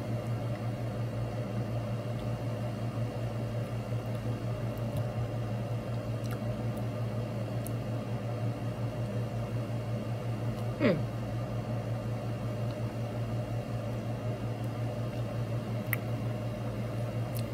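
Steady low hum of room tone. One short sound falls steeply in pitch about eleven seconds in, and a couple of faint clicks come near the end.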